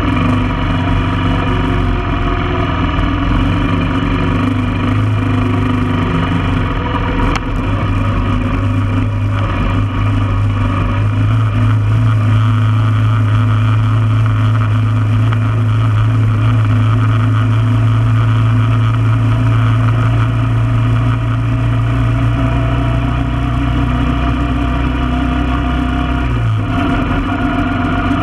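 1995 Honda Foreman four-wheeler's single-cylinder four-stroke engine running steadily under way. The engine note rises slightly about a third of the way in and eases off near the end.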